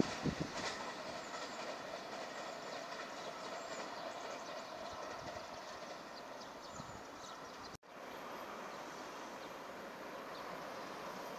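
Rapid Marine Liner electric train running away through the station without stopping: a few wheel clacks over rail joints in the first second, then its rushing noise slowly fades. About eight seconds in the sound cuts out for an instant, and faint steady background noise follows.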